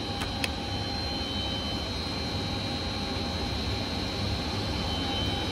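Steady drone of a motor running under load on a variable-frequency drive, with a low hum and a faint high whine. Two light clicks just after the start.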